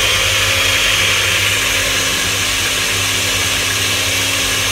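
Osterizer Pulse-Matic push-button blender running at a steady speed, puréeing a creamy garlic soup.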